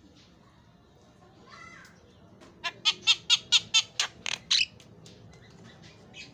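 Javan myna calling: a faint short call, then a quick run of about eight loud, harsh notes, some four a second, lasting about two seconds past the middle.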